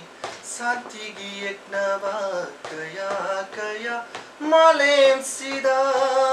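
A man singing a slow melody unaccompanied by words of talk, getting louder about two-thirds in and holding long notes toward the end.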